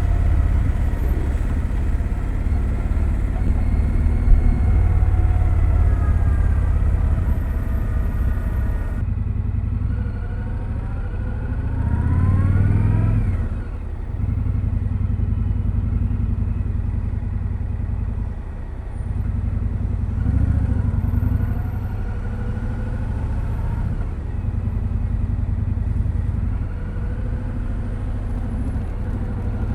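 2025 Indian Scout Sixty Bobber's V-twin running through its stock exhaust while riding. Its pitch climbs as it accelerates about ten to thirteen seconds in. It drops off briefly twice, near fourteen and nineteen seconds, then pulls again, and holds steady for the rest.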